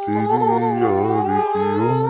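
Devotional aarti song to the goddess Durga: a high voice singing a long held note over instrumental accompaniment.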